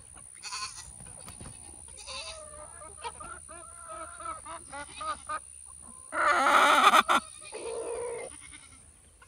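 Hens clucking in a run of short, bending calls, followed about two-thirds of the way in by one loud call of about a second and then a shorter, lower call.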